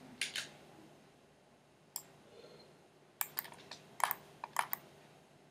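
Computer mouse and keyboard clicks: a few single clicks in the first two seconds, then a quick run of clicks about three seconds in.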